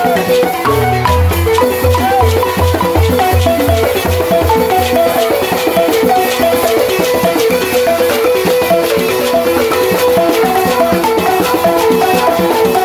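Senufo balafon, a wooden xylophone, played in a fast, repeating melodic pattern of struck notes over a steady low beat.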